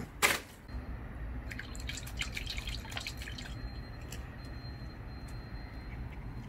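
Water dripping in scattered, irregular ticks over a steady low outdoor rumble, the drips thinning out after about three seconds. A short louder noise comes at the very start.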